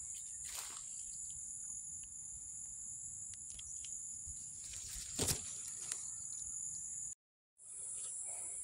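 Steady high-pitched chorus of insects in vegetation, with a couple of brief rustles, the loudest about five seconds in. The sound drops out for about half a second near the end.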